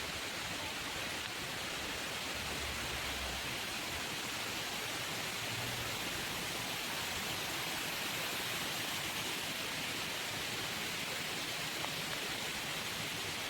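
Steady rush of a tumbling waterfall, an unbroken roar of falling water with a few faint low thuds early on.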